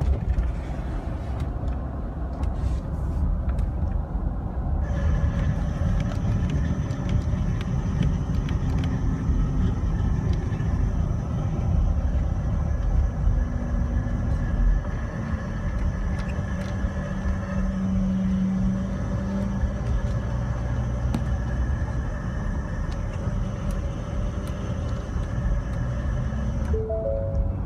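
Ford F-150 pickup running with a steady low rumble. From about five seconds in until near the end a thin high-pitched whine sits over it, the weird noise the owner reports alongside a 'Service AdvanceTrac' warning and an electrical fault.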